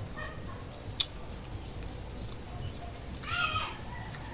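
A chicken's call with several stacked tones about three seconds in, over steady rural background noise, with a single sharp click about a second in.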